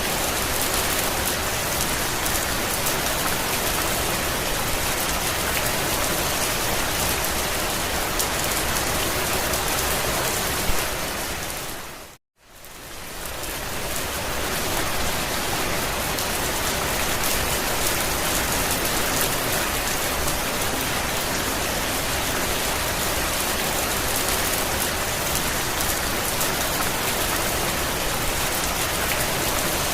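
Steady rain falling on a campervan roof, an even patter of drops on the metal. About twelve seconds in it fades to a moment of silence and fades back up, as at a loop splice.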